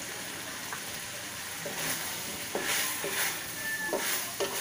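Chicken gizzards and chicken frying in a metal wok, their sauce cooked down nearly dry, with a steady sizzle. From about a second and a half in, a wooden spatula stirs them in a run of quick scraping strokes against the wok.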